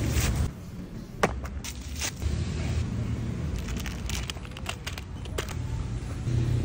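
Plastic wrappers of fishing-dough packets crinkling and tearing open, with several sharp crackles, over a steady low rumble.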